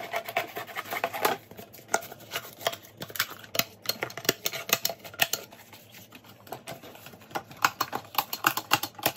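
Cardboard rustling and scraping as a strip is bent into a collar, with a handheld stapler clicking many times as it is fastened, the clicks coming thickest near the end.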